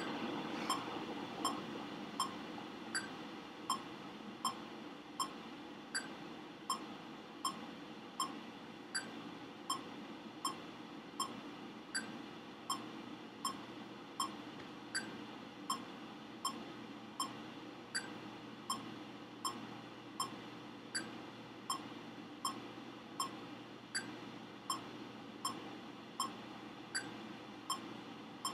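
Metronome ticking steadily at about 80 beats a minute, keeping time for a high mark time dance drill, over a steady background hiss.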